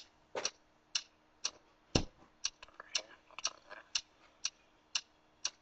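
Clock-like ticking sound effect, a steady tick about twice a second, with a few fainter clicks in between.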